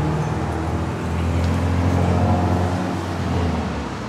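A motor vehicle's engine running close by: a low, steady hum that shifts pitch about a second in and fades toward the end.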